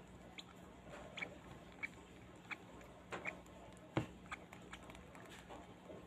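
Nestling bird being hand-fed from a syringe: short, faint feeding sounds at its beak, roughly one a second, with a sharper click about four seconds in.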